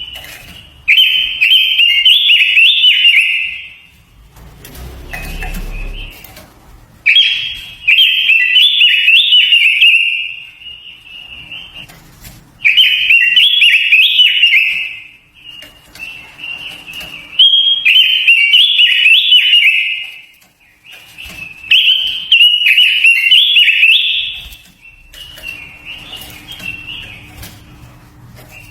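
A quế lâm songbird singing loud, fast warbling phrases of gliding whistled notes, about six phrases of two to three seconds each with short pauses between. This is lure song used to stir up other birds and train their voices.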